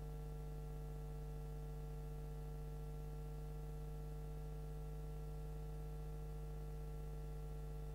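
Steady electrical mains hum with a stack of overtones and a faint hiss, unchanging throughout.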